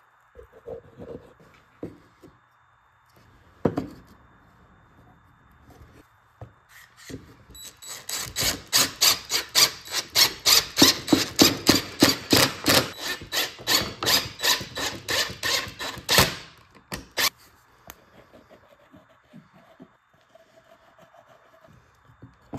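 One-handed bar clamp being tightened onto pine leg pieces by rapid trigger squeezes: a run of sharp ratcheting rasps, about four a second, that starts about eight seconds in and stops some eight seconds later. Lighter knocks of wood pieces being handled come before and after.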